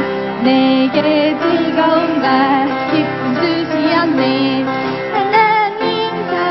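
Music: a children's worship song, voices singing over instrumental accompaniment.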